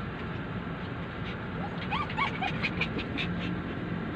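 Poodle whining, a run of short high-pitched whimpers about halfway through, over a steady background hum. It is the distressed crying of a dog left behind while its owner is away.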